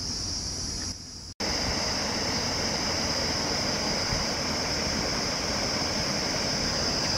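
Steady rushing of water spilling over a low stone weir, under a constant high insect buzz. The sound drops out briefly about a second and a half in, and the rushing is continuous after that.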